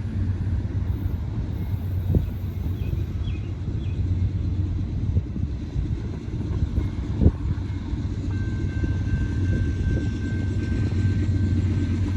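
Low steady rumble of an approaching diesel freight train, slowly growing louder, with a couple of sharp knocks. A faint high steady tone joins about two-thirds of the way through.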